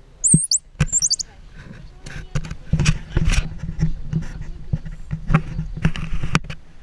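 Rapid knocks, taps and scrapes of squirrel monkeys grabbing and clambering over a GoPro camera, with two quick high-pitched chirps in the first second or so.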